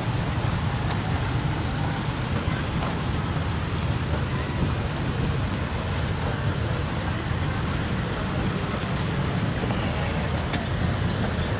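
Steady low rumble of an engine running at an even speed.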